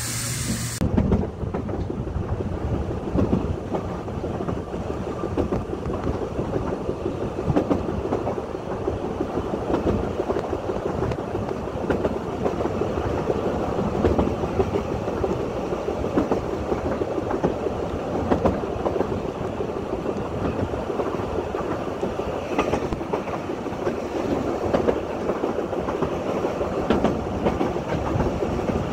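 Welsh Highland Railway narrow-gauge train running along the track: a steady rumble with many small wheel clicks. A hiss cuts off about a second in.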